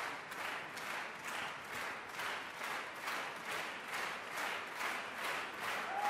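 Theatre audience applauding, the clapping falling into a steady unison rhythm of about three claps a second.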